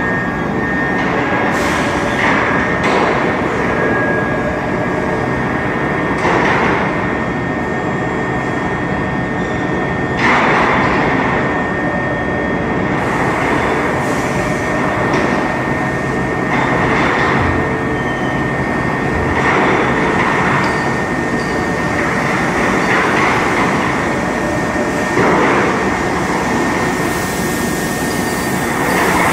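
Automatic foundry casting conveyor line running: a steady, dense machine rumble with a constant high whine. Short rushing bursts come every few seconds.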